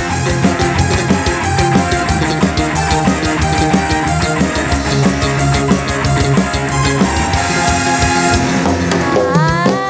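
Live rock dangdut band playing loud through a large PA sound system, heard from about 50 m away in the crowd: a driving drum kit, heavy bass and electric guitar. A rising melodic line comes in near the end.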